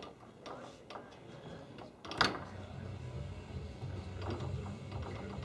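Foosball ball and plastic men on a Tornado foosball table clicking and knocking during play, in a few separate strikes, the loudest about two seconds in.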